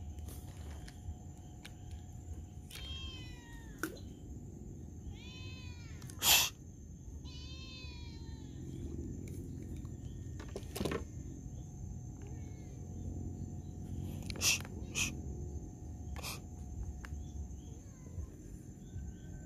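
Animal calls: groups of short pitched cries that fall in pitch, repeated every few seconds in the first half, over a steady high-pitched whine and a low rumble. A few sharp clicks come through, the loudest about six seconds in.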